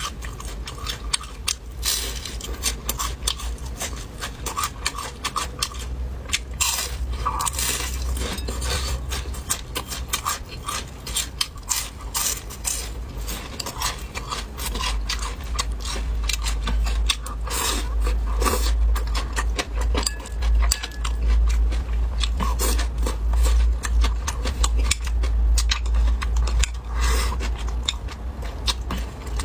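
Close-up chewing and crunching of crisp fried small yellow croaker: a dense run of crackly, crunchy clicks, over a steady low hum.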